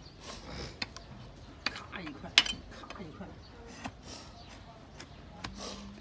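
A long hoof-paring blade cuts and shaves a hard donkey hoof on a rubber tyre block. Each stroke scrapes, and several give a sharp crack as a piece of horn comes away, the loudest about two seconds in.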